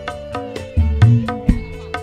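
Live dangdut band playing: deep kendang hand-drum strokes whose pitch drops after each hit, about a second in and again near the middle, over steady cymbal ticks and a held electric-guitar note that bends slightly near the start.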